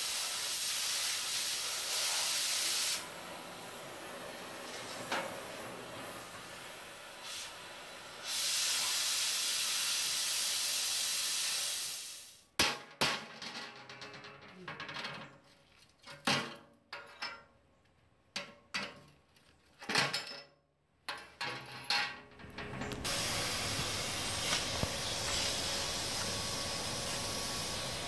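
Oxy-acetylene cutting torch hissing steadily as it cuts 3/16-inch steel plate, getting louder and softer in steps. Partway through, the hiss gives way to about ten seconds of scattered knocks and clatter, then a steady hiss returns.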